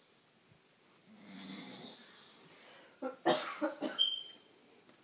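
A sleeping man snoring: one soft in-breath about a second in, then three or four loud coughing snorts about three seconds in, ending in a short high whistle.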